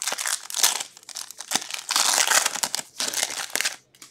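A foil trading-card pack wrapper being torn open and crinkled by hand, an irregular crackling that stops shortly before the end.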